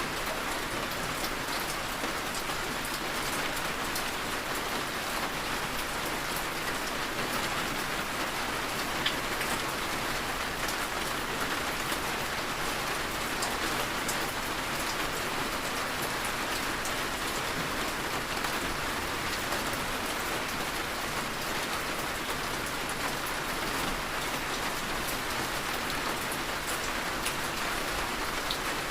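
Heavy rain falling steadily, a dense even hiss with scattered sharp ticks of individual drops striking surfaces.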